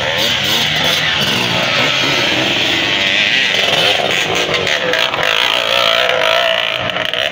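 Dirt bike engines revving hard on a steep climb, their pitch rising and falling.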